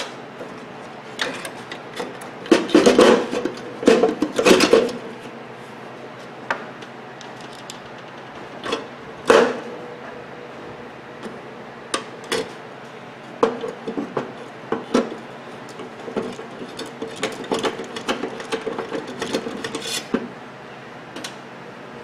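Irregular metal clinks, knocks and scrapes as a replacement microwave-oven magnetron is set into the oven's sheet-metal chassis and fastened in place with a screwdriver and nut driver.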